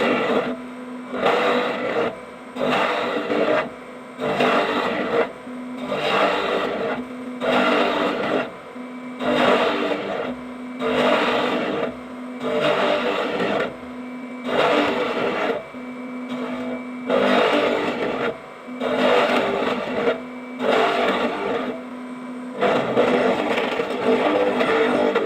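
Power tool cutting a lock mortise into a wooden door. Its motor hums steadily, and roughly every two seconds it gets a scraping bite into the wood, about a dozen cuts in all.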